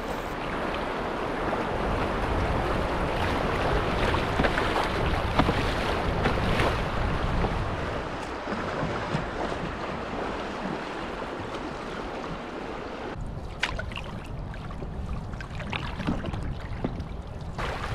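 Wind buffeting the microphone over rushing river water from an open canoe under paddle on a fast-flowing river. About two-thirds of the way in the wind noise drops and a few paddle strokes splash.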